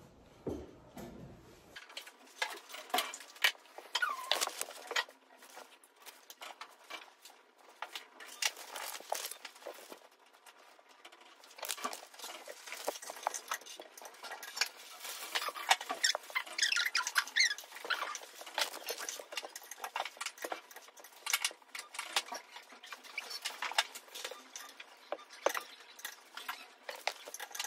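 Ink brush bristles stroking and scratching across paper in many short, quick strokes, with a few brief squeaks among them.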